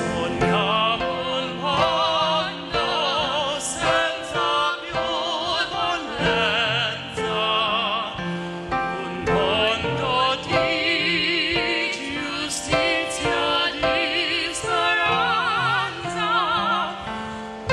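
A male and a female vocalist singing a duet with wide vibrato, accompanied by piano.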